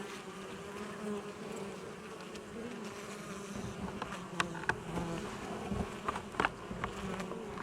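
Honey bees buzzing in a steady, wavering hum: a colony roused into a strong defensive response, flying out around the keeper. A few light clicks sound midway.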